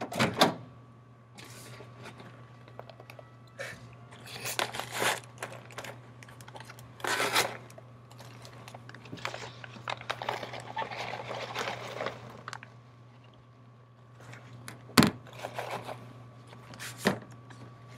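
A paper microwave popcorn bag being pulled open, crinkling and tearing in irregular bursts. Two sharp knocks come near the end.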